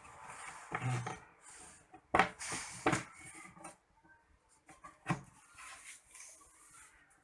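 Incubator box being handled: about five sharp knocks, the loudest about two seconds in, with short scraping and rubbing sounds between them.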